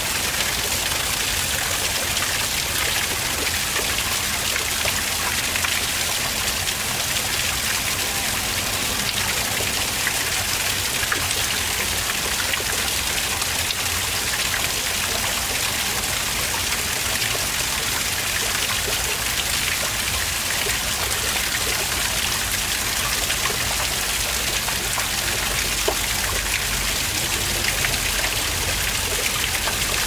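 Small waterfall pouring down a rock face and splashing into a shallow pool, a steady, even hiss of falling and splashing water.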